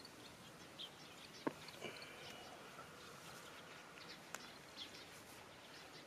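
Faint rural outdoor ambience with scattered short bird chirps and two sharp clicks, about one and a half and four and a half seconds in.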